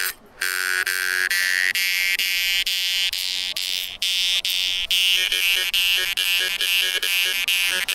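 Metal jaw harp played with quick, even plucks, about three a second, its buzzing drone carrying a bright overtone melody that shifts up and down as the mouth changes shape. It starts after a brief gap at the very beginning.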